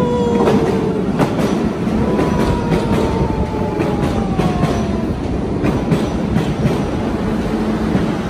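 Electric passenger train pulling into an underground station platform. Its wheels rumble with repeated clicks over the rail joints, and a whine falls steadily in pitch as the train slows, fading out about five seconds in.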